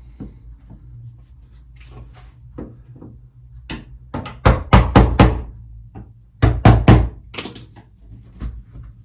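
Steel hammer tapping a chisel into the gap behind a UPVC door's plastic glazing bead, with a few light knocks and then two quick runs of sharp strikes: four about halfway through and three more a second or so later.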